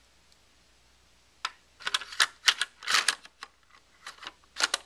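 Hard plastic clicks and clacks from the detached handguard of a KWA G36C airsoft gun being handled against the gun. They come in irregular clusters, starting about a second and a half in.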